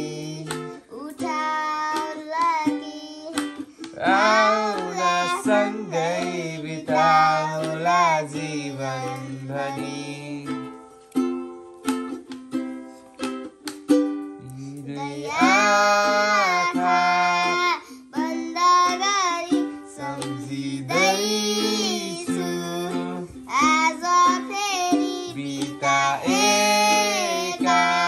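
A ukulele being strummed while a man and a child sing along. The singing breaks off for a few seconds about halfway through, leaving the strumming, then comes back.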